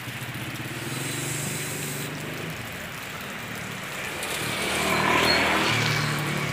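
Motorcycle engine running steadily while riding, with rushing wind noise over it that swells about four seconds in.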